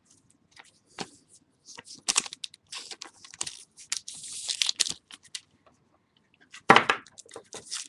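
Trading cards and plastic packaging being handled: a run of quick clicks and taps, with crinkling in the middle and a louder rustle near the end.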